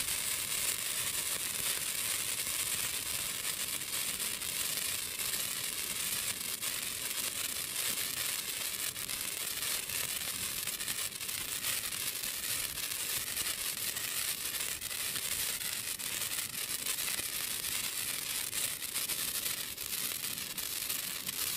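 Hand-held sparklers burning: a steady fizzing hiss of sparks, dotted with many tiny crackles.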